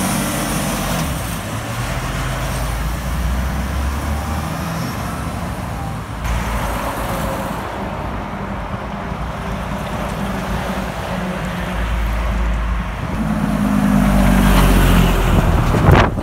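Heavy diesel trucks driving past on a highway, with engine rumble and tyre noise. A Freightliner semi-trailer goes by at the start, and a louder truck passes close by near the end, followed by a sharp short sound just before the end.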